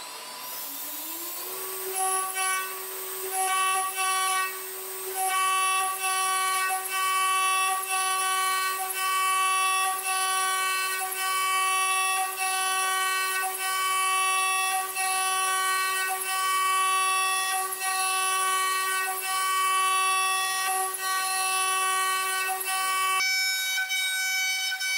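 High-speed CNC milling spindle at 22,000 rpm with a 2 mm carbide end mill cutting brass: a steady whine with many overtones. It rises in pitch over the first second and a half as the spindle comes up to speed, then holds, with short dips in the first few seconds. About two seconds before the end it shifts to a different pitch.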